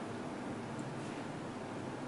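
Steady low hiss of background noise, with no distinct event.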